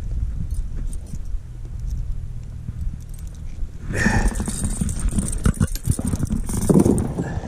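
Handling noise of a caught rainbow trout on a metal fish gripper: a steady low rumble. From about four seconds in, many short clicks and knocks come in as the fish is lifted.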